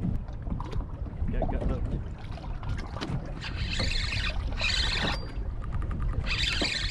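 Wind rumbling on the microphone over a small boat on open water. There are three short hissing surges about halfway through and near the end, as of water splashing against the hull.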